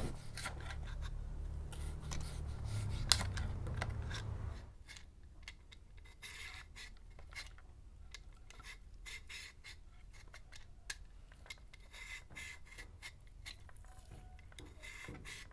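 A kitchen knife slicing raw chicken thinly, with a sharp knock about three seconds in. About four and a half seconds in it gives way to a hand peeler scraping the skin off a pale-green gourd in short, repeated strokes.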